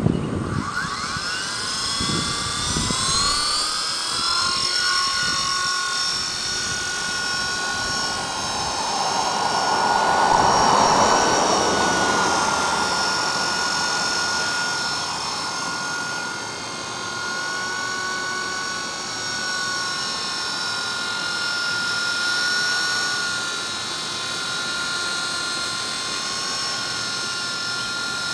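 Electric GAUI Hurricane 200 RC helicopter spooling up: a rising whine from the motor and rotor over the first few seconds. It then settles into a steady high whine with a slight waver in pitch. A louder rushing swell comes around ten seconds in.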